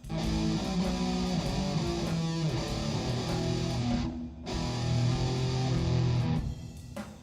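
Guitar-led background music with held notes. It drops out briefly about four seconds in and thins out near the end.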